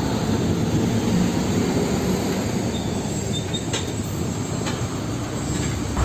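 Heavy trucks in street traffic, a fuel tanker truck among them: a steady low rumble of engines and rolling tyres.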